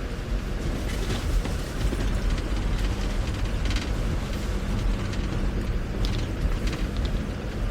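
Force Gurkha's diesel engine droning steadily as the 4x4 drives slowly on a snowy, slippery road, with a few short crackles from the tyres and body a second in, near the middle and near the end.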